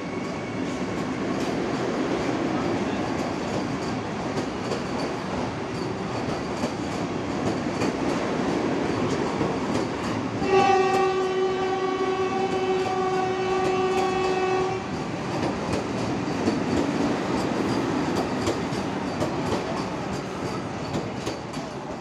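Vande Bharat Express electric train running past along a platform, its coaches rolling by with a steady rumble. About ten seconds in, its horn sounds one long steady note lasting about four seconds, which is the loudest sound.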